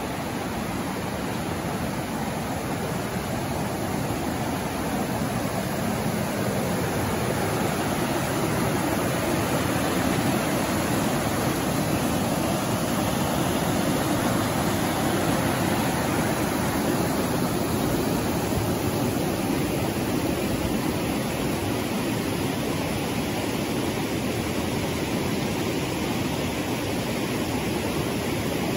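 Floodwater of a creek swollen by heavy storms, rushing and churning over fallen logs and debris: a steady, loud rush, a little stronger in the middle.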